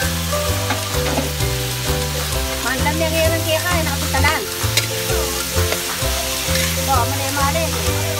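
Yardlong beans sizzling as they are stir-fried in a metal wok, the spatula scraping and clicking against the pan. Background music with a stepping bass line plays along.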